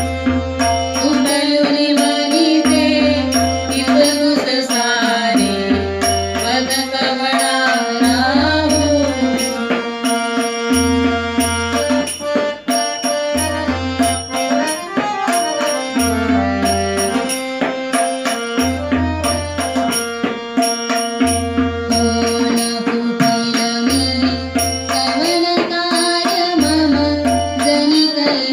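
Indian devotional music: tabla keeping a steady rhythm with a deep bass-drum stroke about every two and a half seconds, a harmonium carrying the melody, and small brass hand cymbals ticking along.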